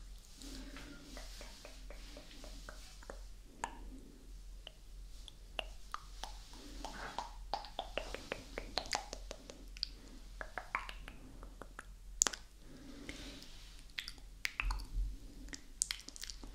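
ASMR mouth sounds made right at a binaural microphone: wet lip smacks and tongue clicks in a quick, irregular string.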